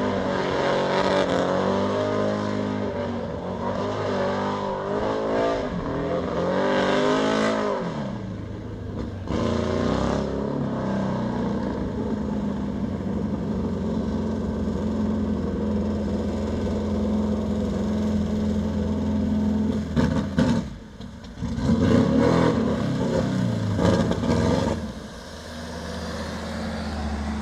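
Oval-track race buggy's engine revving hard with a wavering pitch for about the first eight seconds, then running steadily at idle. Several sharp throttle blips come between about twenty and twenty-four seconds in, after which it settles back to a quieter idle.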